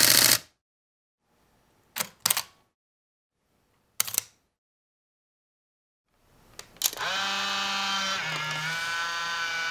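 A run of still-camera shutter sounds: the tail of a dense mechanical shutter burst at the start, a double shutter click about 2 s in, and a single click from a Sony α7 II mirrorless camera about 4 s in. Near 7 s a Fujifilm Instax 210 instant camera clicks its shutter, then its film-ejection motor whirs with a steady whine that shifts pitch once as it pushes out the print.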